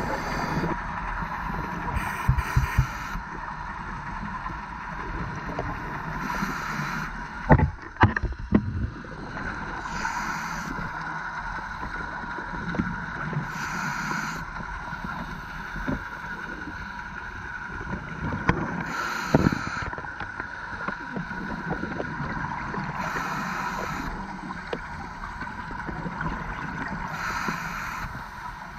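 Scuba diver breathing through a regulator, heard underwater: a hissing burst of exhaled bubbles about every four seconds over a steady underwater hum. A few sharp knocks come about seven to eight seconds in.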